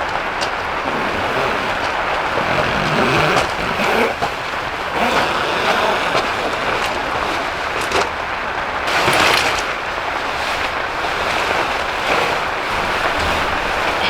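Steady vehicle noise, a continuous rushing hiss like a car travelling on the road, with a few light knocks and a brief swell in loudness past the middle.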